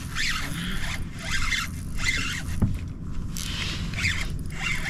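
Fishing reel working in short, irregular zipping spurts while a hooked bass is fought.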